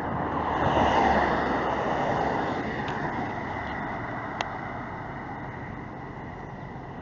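A vehicle going past: a rushing noise that swells to its loudest about a second in and then slowly fades away. A single sharp click comes about four and a half seconds in.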